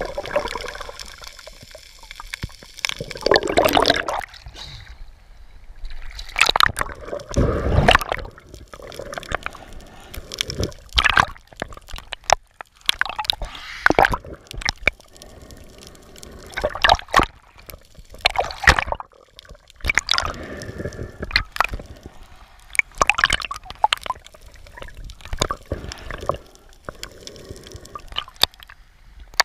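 Water gurgling and sloshing around a submerged camera, in irregular bursts every few seconds.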